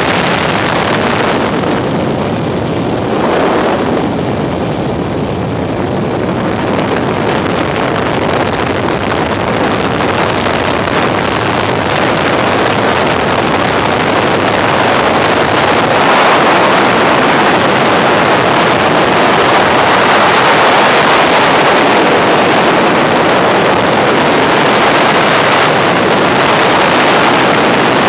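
Steady in-flight helicopter noise, the engine and rotor din mixed with wind buffeting the microphone. It dips slightly a couple of seconds in and grows louder about halfway through.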